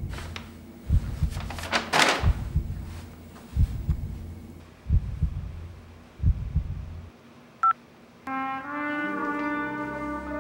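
Film score: pairs of low thumps pulsing about every 1.3 seconds like a heartbeat, with a whoosh about two seconds in. The pulse stops about seven seconds in, a short high beep sounds, and then a brass section comes in with held chords.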